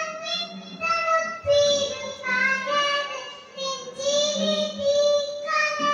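A young girl singing solo into a microphone, in short phrases of held notes.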